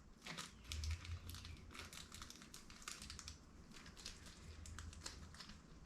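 Faint crinkling and rustling of small jewelry packaging being handled, with scattered light clicks and ticks.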